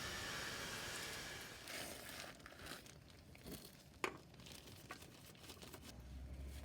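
Handling noises: a steady hiss that stops about two seconds in, then crinkling and rustling with scattered light clicks and one sharp click about four seconds in.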